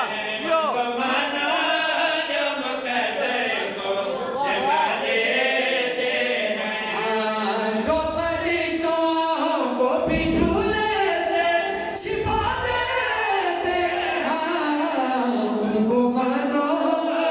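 A group of men singing a devotional qasida together, with one lead voice and others joining, unaccompanied by instruments.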